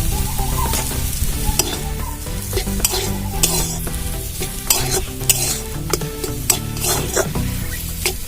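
Spatula stirring and scraping spiced mashed potato frying in oil in a kadai, with a steady sizzle and frequent irregular clacks of the spatula against the pan.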